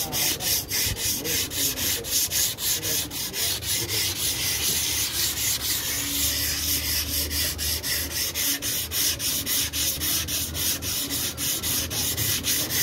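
Sandpaper on a hand block dry-sanding cured body filler on a car fender: quick back-and-forth scratchy strokes, about four a second, that blur into a steadier rasp for a couple of seconds mid-way.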